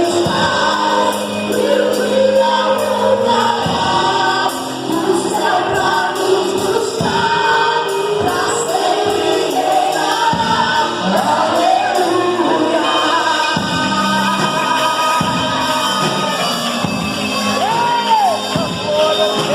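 Gospel band playing with a group of voices singing together over steady bass notes and light percussion.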